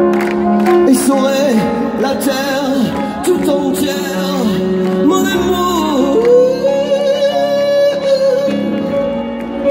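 Live concert sound of a male singer singing over piano accompaniment, the melody sliding up and down, then holding one long note from about six seconds in.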